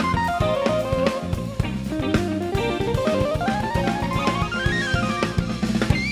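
Live jazz-fusion band playing, with a busy drum kit of kick, snare and cymbals, a bass line, and electric guitar. A lead line climbs in a long stepwise run from about two seconds in, peaks near the end, and falls back.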